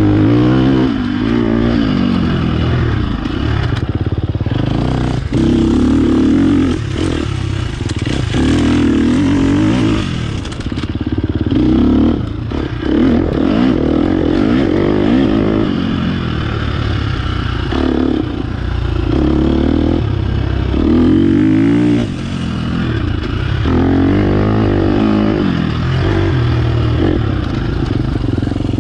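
Dirt bike engine being ridden along a rough single-track trail, revving up and dropping back over and over as the throttle is opened and closed through the turns, with occasional knocks from the bike over bumps.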